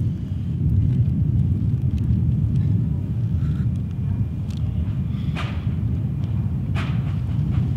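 Steady low outdoor rumble, with two brief faint higher sounds about five and a half and seven seconds in.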